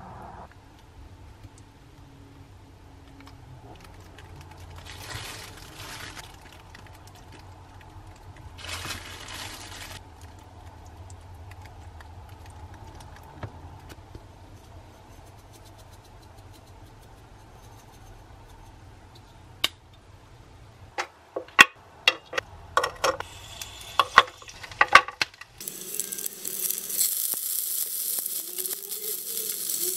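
Low room hum with two brief hissing rustles, then a run of sharp clicks and clatters. Near the end, dumplings sizzle in a frying pan, a steady hiss.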